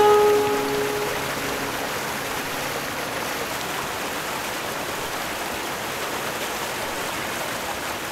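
The last plucked-string notes ring out and die away in the first second, then a steady rushing noise holds evenly.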